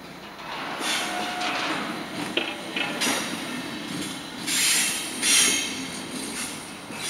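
Train rolling over the tracks with its wheels squealing in bursts. The two loudest, sharpest squeals come about four and a half and five and a half seconds in.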